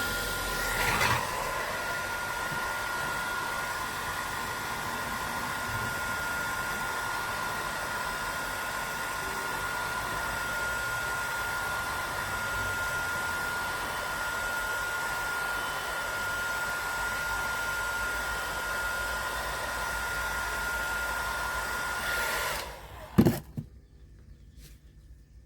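A small electric motor running steadily with a high constant whine, switched off about three seconds before the end, followed by a single thump.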